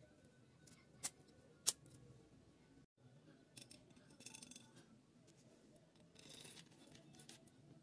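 Faint small metal clicks and light rattling as a Suzuki DR650's cam timing chain and new head gasket are handled on the cylinder: two sharp clicks about a second in, then two short bursts of rattling later on.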